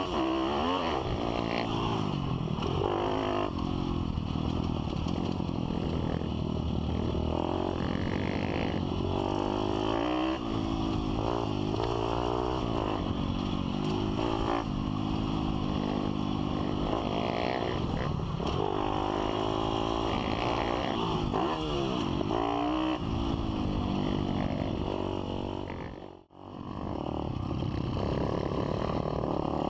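Pit bike's small single-cylinder engine heard from on the bike, revving up and falling back again and again as the rider accelerates and shifts along a dirt track. The sound drops out briefly near the end, then resumes.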